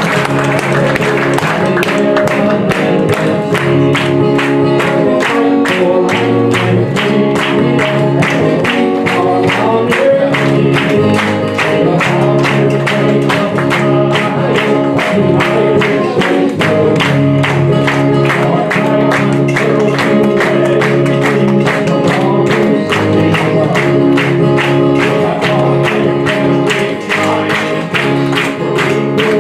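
A live song with acoustic guitar, sustained backing chords and a steady beat, with the audience clapping along in time.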